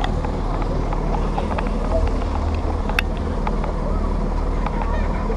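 Steady low rumble of slow-moving road vehicles, with faint voices and a single sharp click about three seconds in.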